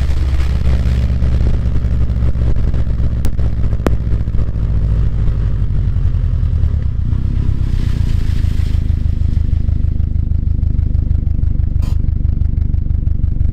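Exhaust of a Subaru WRX STI's turbocharged flat-four through an ETS non-resonated quiet muffler, idling steadily. Its low note shifts slightly about halfway through, with a few faint clicks.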